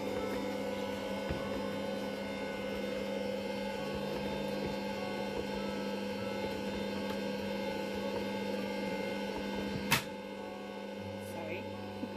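Bosch stand mixer running steadily with a motor hum, its beater working cake batter. A single sharp knock sounds near the end.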